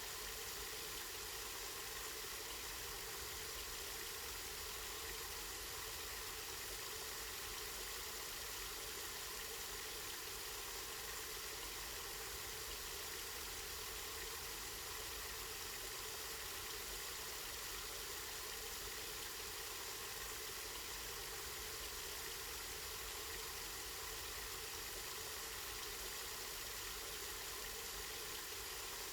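Water from a spring running and splashing steadily.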